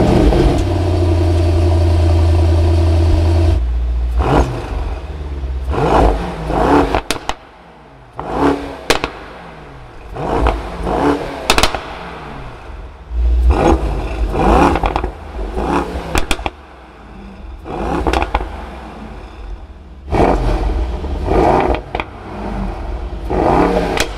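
Mercedes-AMG GT 63 S's 4.0-litre twin-turbo V8, just started, holding a steady high idle for about three and a half seconds. It is then blipped again and again: about a dozen short revs that rise and fall back to idle, with sharp cracks between some of them.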